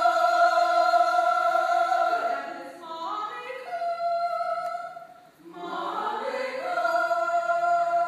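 Choir singing a vocal exercise: the voices slide up into long held notes, with a short break about five seconds in before the next slide up and held note.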